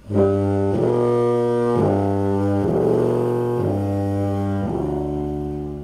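Trombone played through a 3D-printed foghorn mouthpiece: a slow series of about six held low notes, each about a second long, changing pitch from note to note.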